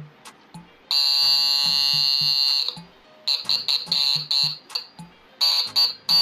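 Motorcycle electric horn sounding after repair: one long buzzy blast of about two seconds, then a quick run of short toots and another blast near the end.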